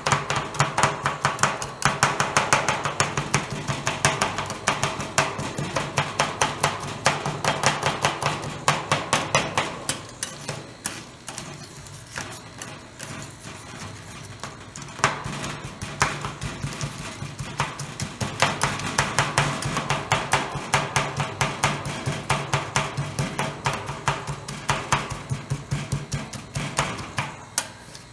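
Metal spatulas rapidly chopping and scraping ice cream mix with nuts on the frozen stainless steel pan of a fried (rolled) ice cream machine: a fast run of clinks and taps that eases off for a few seconds about halfway, over a low steady hum.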